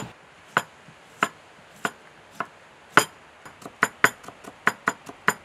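Chef's knife slicing a cucumber into thin strips on a wooden cutting board: sharp knocks of the blade on the board, spaced out at first, then quickening to about three or four a second from about halfway through.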